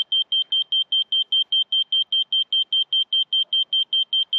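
Laser level receiver on a grade rod beeping: a single high beep repeated evenly about six times a second. The pulsed beeping, not the solid tone that marks on-grade, shows the receiver is picking up the laser beam but is off grade.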